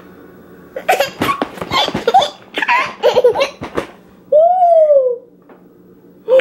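A toddler laughing in quick bursts for about three seconds, followed by one drawn-out vocal call that falls in pitch.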